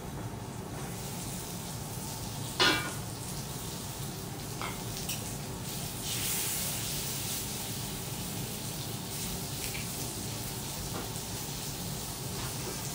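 Food sizzling steadily on a steel teppanyaki griddle, the hiss growing a little louder about six seconds in. A single sharp metal clank comes about two and a half seconds in, followed by a couple of lighter taps of steel utensils against the griddle.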